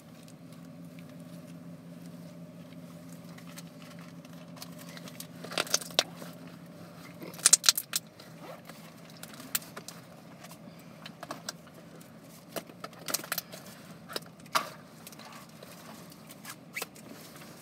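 Hands squeezing and stretching a clicky green slime, which gives scattered sharp clicks and pops, loudest in a cluster about seven and a half seconds in. Under it, a low steady car engine hum fades out about six seconds in.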